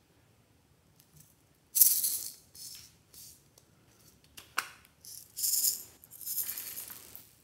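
Small loose bits rattling inside a hollow plastic pill-shaped toy container, in several short bouts as it is handled and shaken, with one sharp plastic click about halfway through as it is snapped open.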